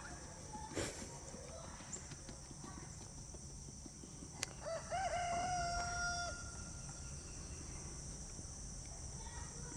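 A large fowl calls once, about five seconds in: a brief wavering start, then one long note held for more than a second. A faint steady insect trill runs underneath, and a single sharp click comes just before the call.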